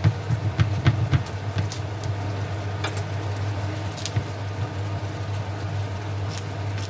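Soy, orange juice and sugar sauce boiling hard around chicken wings in a frying pan as it reduces toward a sticky caramel glaze, crackling with sharp bubble pops, most of them in the first couple of seconds. A steady low hum runs underneath.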